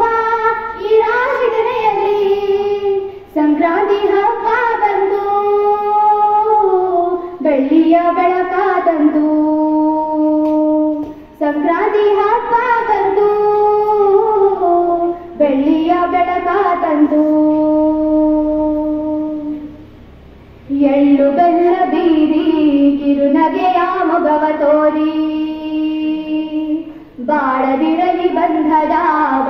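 A group of schoolgirls singing together into a microphone, in phrases of about four seconds that end on held notes, with short breaths between them and a pause of about three seconds roughly two-thirds of the way in.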